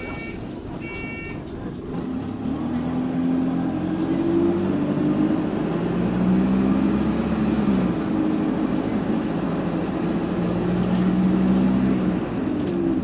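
A few electronic beeps, then a bus's diesel engine pulls away and accelerates, its pitch rising and dropping back several times as it changes gear.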